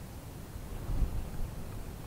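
Wind buffeting the microphone: a low rumble, with a stronger gust about a second in.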